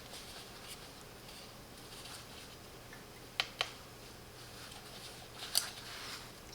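Faint, sharp clicks from handling a Keychron M3 wireless mouse: two quick clicks about three and a half seconds in and another near the end, as its buttons are pressed to step through the lighting effects.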